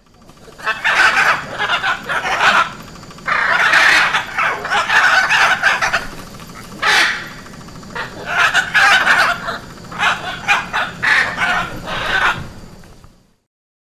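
Macaw squawking: loud, harsh calls in several bouts with short pauses between them.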